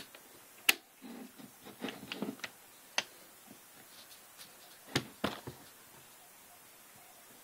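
Taurus PT 24/7 Pro DS pistol being reassembled by hand: a handful of sharp metal clicks with small clattering handling noises between them, the strongest clicks just under a second in and twice around five seconds in.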